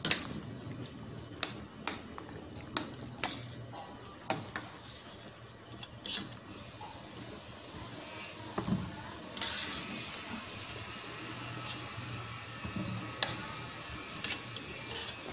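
Vegetables boiling in a stainless steel pot, with a metal utensil clicking against the pot several times in the first half. From about nine seconds in, a steady hiss of rolling boil and steam takes over.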